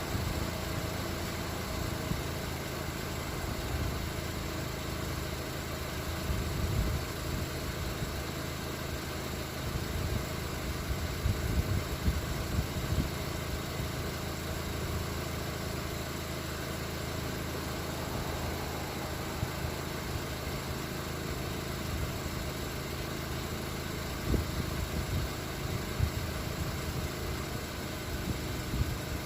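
Car engine idling steadily, with a few brief knocks.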